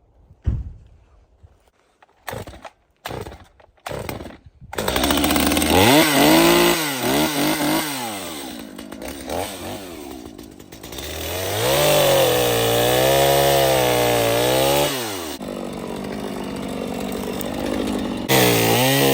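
A few short knocks, then a gasoline chainsaw starts up about five seconds in and is revved high twice, dropping back to a lower speed between and after.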